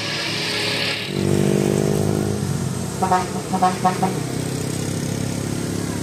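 A motorcycle engine passing on a wet road, its pitch falling slightly, with a quick run of short tones about three seconds in.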